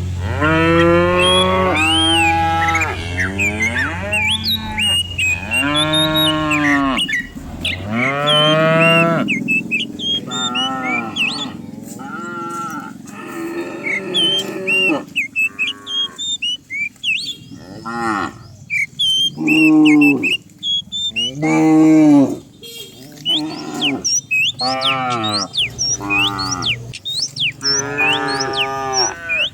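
A herd of cattle mooing over and over, many calls one after another and sometimes overlapping, some long and rising then falling in pitch.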